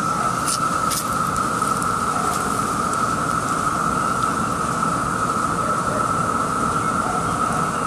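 Chorus of Brood II periodical cicadas (Magicicada): a dense, steady drone held on one pitch without a break.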